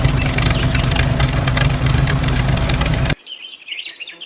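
Tractor engine running steadily, cutting off suddenly about three seconds in; birds chirp after it.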